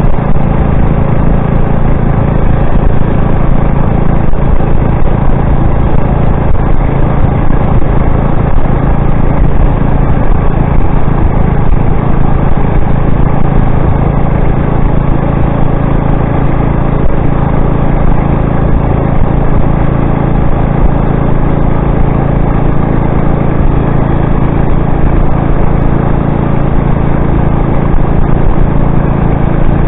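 A motorized bicycle's small engine running steadily under way, its pitch and loudness holding constant.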